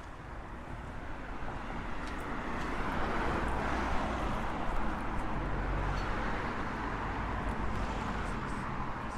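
A motor vehicle passing along the street. Its engine and tyre noise swells over about three seconds, holds, then slowly eases off.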